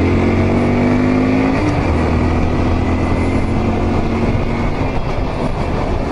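Honda Dax125's 124 cc air-cooled single-cylinder four-stroke engine running under way, fitted with an SP Takegawa Hyper ignition coil and a new NGK MotoDX spark plug, with wind noise on the helmet microphone. The engine note rises a little, then breaks and drops about a second and a half in, and carries on steadily.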